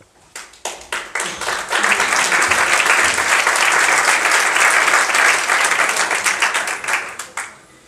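Audience applauding: a few scattered claps at first, swelling into full, steady applause about two seconds in, then dying away near the end.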